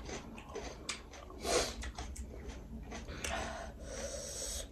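People eating close to the microphone: short breathy sniffs and mouth noises a second or so apart, the loudest about one and a half seconds in.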